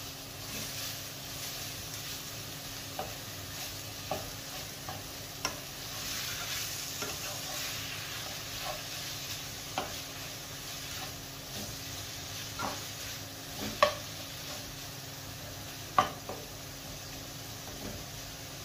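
Minced mutton and chopped onions sizzling steadily in a non-stick frying pan while a plastic spatula stirs and breaks up the mince, with scattered scrapes and taps of the spatula on the pan and a couple of louder knocks in the last third.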